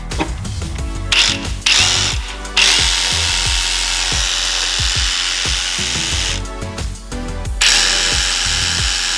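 Ryobi 18-volt cordless reciprocating saw running in bursts: a short run about a second in, a longer one of about four seconds, and another near the end. Background music with a steady beat plays underneath.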